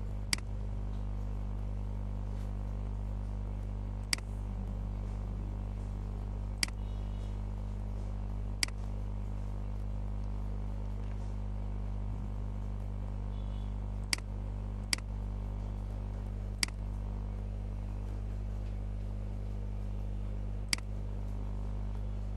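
Computer mouse button clicking about eight times at irregular intervals a few seconds apart, over a steady low hum.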